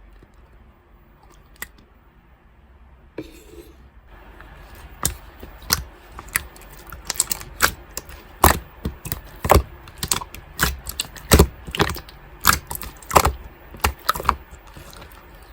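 Slime being pressed and squeezed by hand, giving irregular sharp pops and clicks, several a second, that start a few seconds in.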